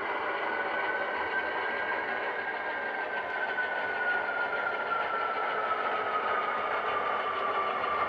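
HO scale model diesel locomotive running under its onboard sound decoder as it pulls a cut of cars: a steady diesel engine sound with a whine that rises a little, then falls slowly.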